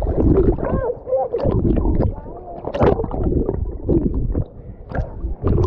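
Pool water sloshing and splashing against a camera held at the surface, with a deep rumble and irregular sudden splashes.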